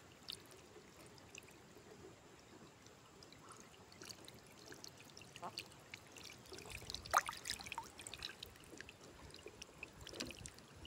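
Shallow water splashing and trickling faintly, with small ticks at the surface and a sharper splash about seven seconds in.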